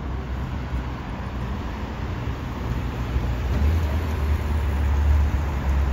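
Street traffic at a city junction: a steady low engine rumble from nearby vehicles, growing louder about halfway through.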